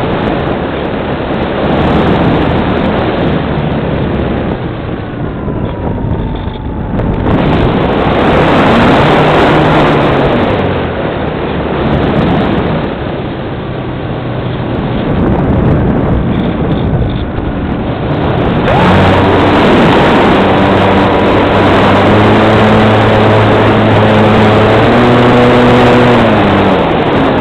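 Wind rushing over the onboard camera of a Multiplex Cularis electric glider in flight. About two-thirds of the way in, the electric motor and propeller come in with a steady hum, which drops in pitch and fades just before the end as the throttle is cut.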